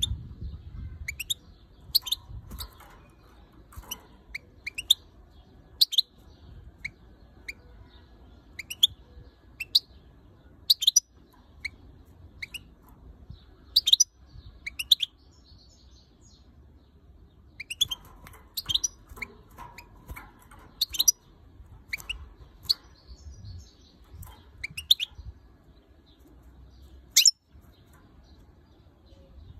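Female European goldfinch giving sharp, high-pitched calls, single notes and quick runs of two or three at irregular intervals, with a pause of a couple of seconds about midway. The uploader takes them for angry calls.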